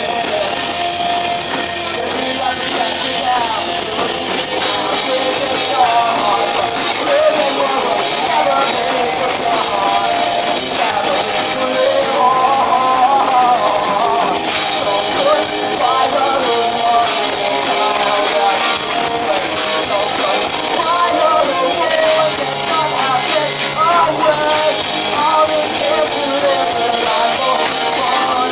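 Live rock band playing loud and steady: electric guitars, electric bass and a drum kit, with a voice singing over them.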